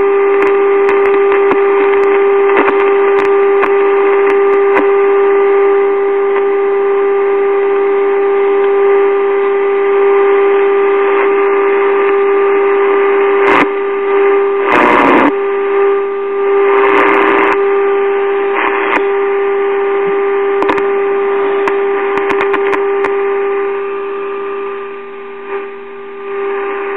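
Steady test tone from a signal generator, heard through the vintage tube radio's loudspeaker over a background of hiss while the IF transformer trimmers are peaked with a screwdriver. A few short crackles come in the middle, and the tone drops in level near the end.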